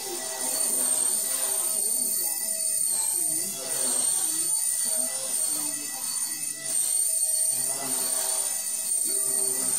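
High-pitched whine of a brushless-converted Blade Nano CP X micro RC helicopter's motor and rotors in hovering flight, wavering slightly in pitch with throttle. Voices and music from a television are heard underneath.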